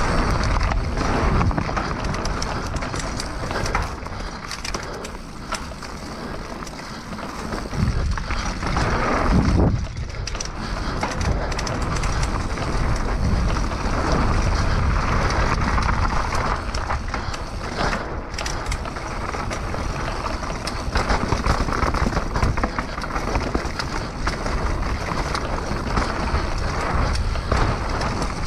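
Mountain bike rolling fast down a dry dirt trail: tyres crunching over dirt and stones, with the bike clattering and rattling over bumps and wind rushing over the camera's microphone.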